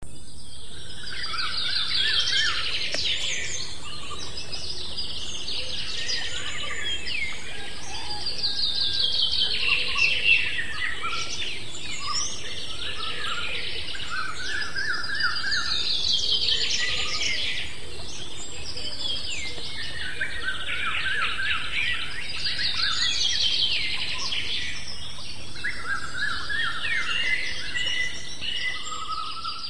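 Birds singing: fast trills and chirps in phrases that come back every few seconds, over a steady high hiss.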